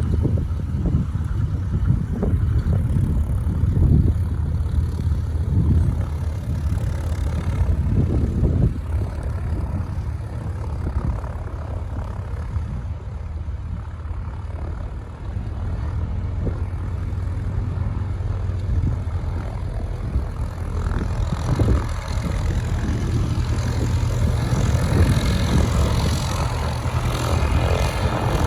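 Twin Pratt & Whitney R-985 radial engines of a Beechcraft JRB-6 running with propellers turning, a low steady engine sound. It grows a little louder and brighter in the last several seconds.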